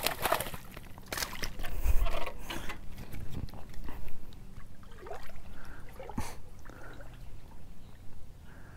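A hooked fish splashing at the water's surface, followed by more scattered splashes and knocks.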